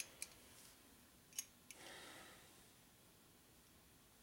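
Near silence, with a few faint clicks of a small steel stud and nut handled in the fingers.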